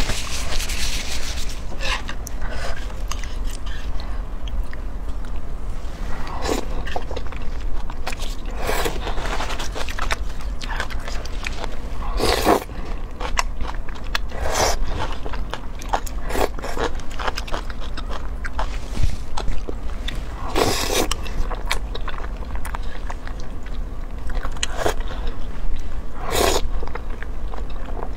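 Close-up eating sounds of spicy stir-fried rice noodles: irregular slurping, chewing and biting, with a few longer slurps spread through.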